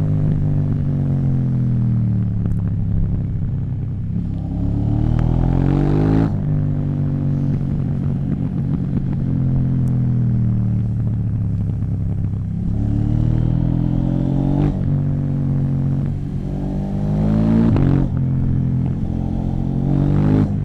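KTM 790 Duke's parallel-twin engine through an Akrapovic exhaust, revving up and down: the pitch climbs and cuts off sharply about four times, and sinks slowly in between.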